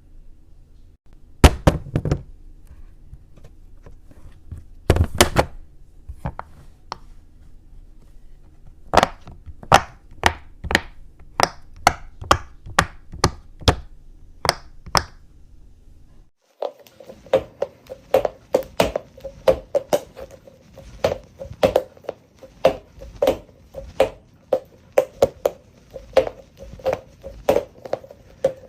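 Hard clicks and knocks from a fidget toy being handled. Two loud knocks come first, then a run of clicks about two a second. Partway through, the background changes and a steadier run of clicks follows, each with a short ringing note.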